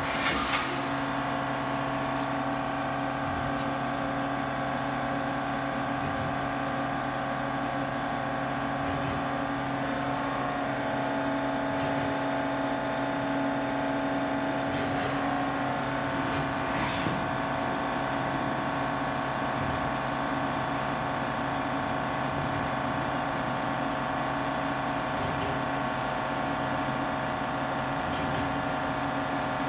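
Spindle of a 2007 Haas OM-2A CNC vertical mill running at about 8,000 rpm: a steady high-pitched whine over a steady low hum. The whine sets in suddenly about half a second in.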